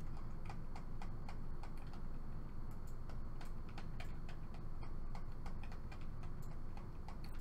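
Light, irregular clicking, roughly three clicks a second, from a metal crochet hook working double crochet stitches, over a steady low background hum.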